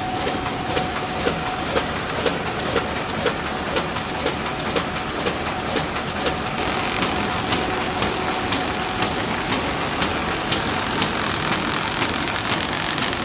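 Automatic paper shopping bag making machine running: a steady mechanical hum with a sharp click repeating evenly about twice a second.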